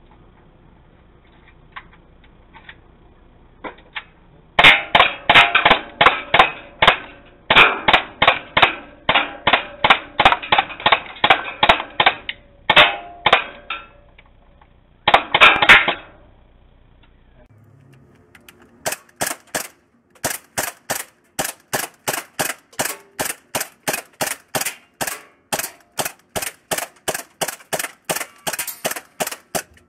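Gas blowback airsoft pistols firing in rapid strings of shots, about three a second, with short breaks between strings. After a pause of a few seconds past the middle, another long string of shots follows, sounding sharper and brighter.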